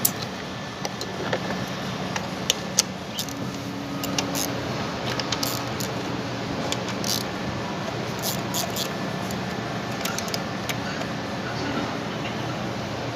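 Scattered light metallic clicks and clinks as ignition coils and their connectors are unplugged and handled under the hood, over a steady low hum.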